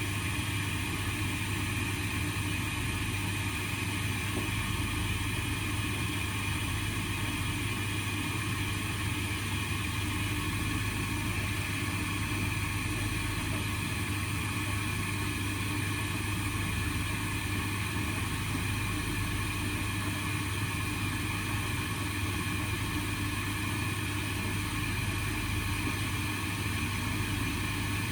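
Indesit washing machine in the cool-down stage of an 85-degree baby cycle, running with a steady, unchanging low hum.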